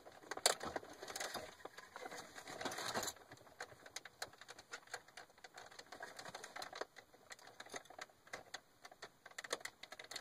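Irregular small clicks and plastic rattling from hands unplugging electrical connectors and switches behind a C6 Corvette's radio bezel, with a rustling scrape over the first three seconds and a quick run of clicks near the end.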